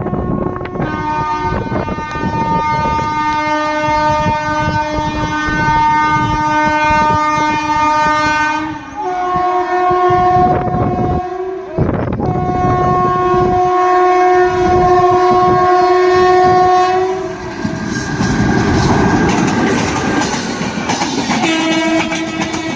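Indian Railways WAP-4 electric locomotive's horn sounding in long, near-continuous blasts with a couple of brief breaks, over the clatter of a train passing at speed. About eighteen seconds in the horn stops for a few seconds, leaving the rush and clatter of the passing train, and it sounds again near the end.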